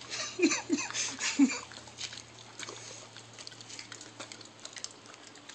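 Dog licking and smacking its lips on a mouthful of peanut butter: many small wet clicks. In the first second and a half there are a few short, loud voice sounds that fall in pitch.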